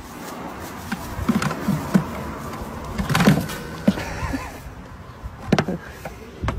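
Young goats' hooves knocking on an upturned plastic bucket as they hop on and jostle around it, a few sharp knocks over a steady noisy background.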